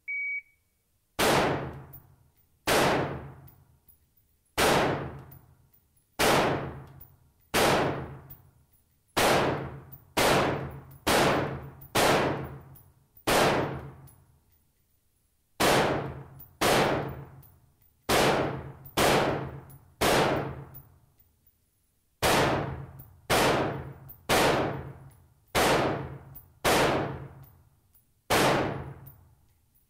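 A shot timer beeps once, then a Huldra Mark IV AR-15-style semi-automatic rifle fires single shots about a second apart, in groups of five with short pauses between the groups (five shots per target). Each shot echoes with a long reverberant tail in the indoor shooting range.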